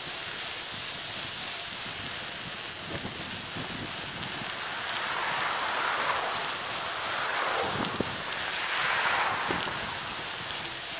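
Wind rushing over the microphone of a camera on a moving bicycle, swelling louder twice in the second half, with a single sharp click about eight seconds in.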